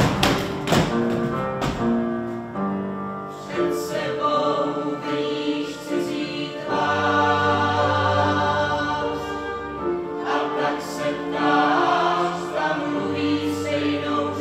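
A choir singing slow chords, each held for a second or more before it changes.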